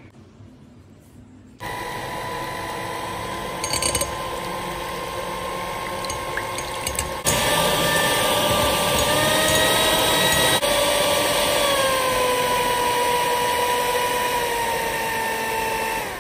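Electric hand mixer beating egg whites to a stiff foam, its motor running with a steady whine. It starts about a second and a half in, gets louder about halfway through, and its pitch sinks a little near the end.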